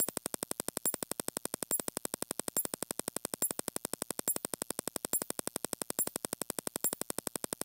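Rapid, even ticking of a sound-effect click track, about ten clicks a second, with a sharper, brighter click a little more often than once a second.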